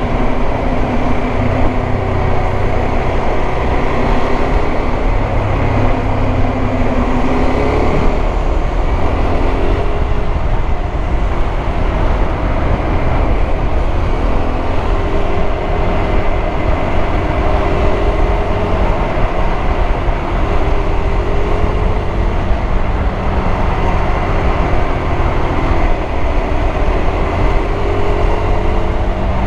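KTM 390 Adventure's single-cylinder engine running at a steady cruise, its pitch rising and falling slightly, under constant wind and road noise.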